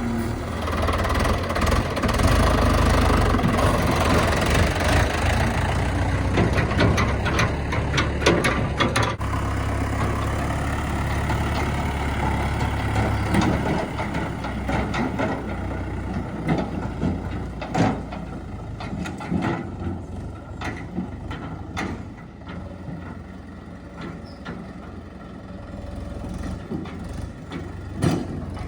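Diesel engine of a JCB 3DX backhoe loader working under load, then easing to a lower run about halfway through, with scattered sharp knocks and clanks.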